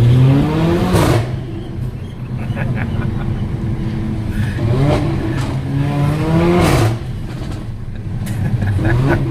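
Mercedes-AMG GLA 45's turbocharged four-cylinder engine accelerating hard: the revs climb, then drop at each upshift with a sharp crack from the exhaust, about a second in and again near seven seconds, before rising once more near the end.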